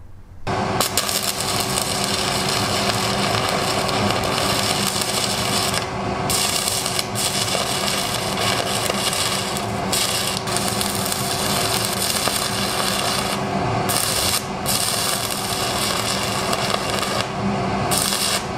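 Stick (MMA) arc welding: the arc crackles and sizzles continuously as the electrode burns, starting about half a second in and breaking off briefly a few times. A steady hum runs underneath.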